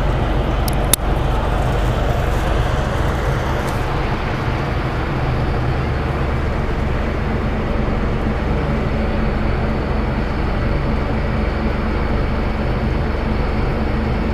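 Ferry under way: its engines give a steady low drone under a constant rushing noise, with one sharp click about a second in.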